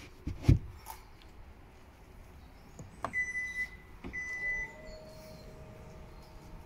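A low thump as the boot floor panel comes down, then two high beeps from the Hyundai Ioniq 5's power tailgate warning chime, followed by the steady whine of the tailgate motor running.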